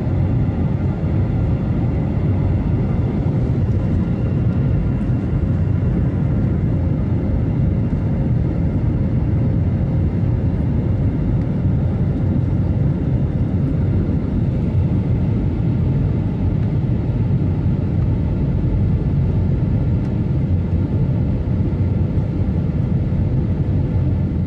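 Steady low rumble of jet engines and rushing air as heard inside an airliner cabin in flight, with faint steady whining tones above it and no change in pitch.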